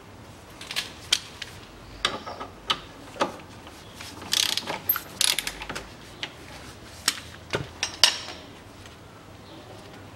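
Ratchet wrench clicking in short irregular runs as a small bolt on an ATV's front steering knuckle is undone, with a few sharp metallic clicks and clinks.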